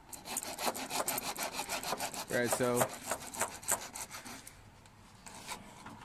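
Rapid rasping, scraping strokes, several a second, like something being rubbed hard back and forth, dying away after about three and a half seconds.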